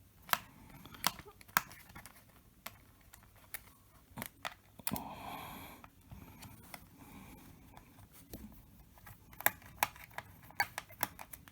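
A small screwdriver working a laptop's bottom-cover screw: sharp, scattered clicks of metal on metal and plastic, with a brief scraping rub about five seconds in.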